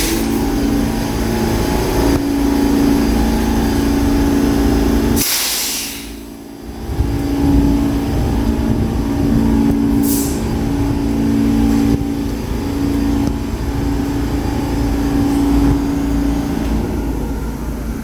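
New York City subway train with its equipment humming steadily and in pulses, and air brakes letting out a loud hiss about five seconds in and a shorter hiss around ten seconds.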